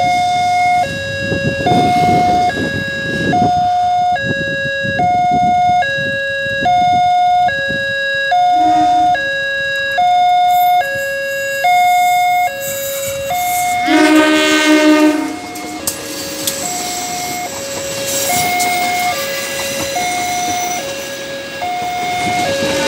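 Level crossing warning alarm sounding a two-tone electronic chime that alternates high and low about every three-quarters of a second. A train horn blasts for about a second and a half around two-thirds of the way in, after a shorter, fainter blast. The rumble of the passing passenger train on the rails then builds under the alarm.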